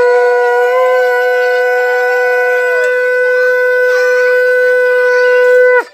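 A conch shell (shankha) blown in worship, one long steady note that ends with a brief drop in pitch as it cuts off.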